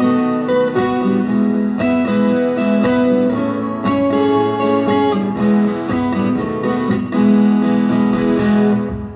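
Acoustic-electric guitar played fingerstyle, a plucked melody over sustained low notes, layered with a looped recording of the guitar played back through speakers. The sound falls away briefly near the end.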